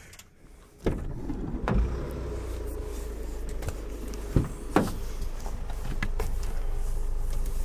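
A car running with a steady low rumble, with several sharp knocks and clunks from about a second in, two of them close together near the middle.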